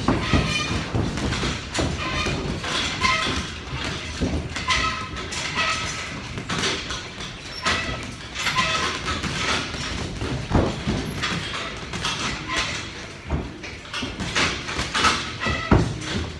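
Boxing sparring: gloved punches landing with irregular thuds, mixed with the boxers' shoes scuffing and stepping on the ring canvas.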